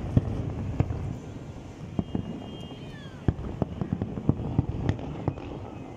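Distant fireworks display: aerial shell bursts going off as sharp bangs at irregular intervals over a continuous low background of overlapping bursts, coming thickest in the second half.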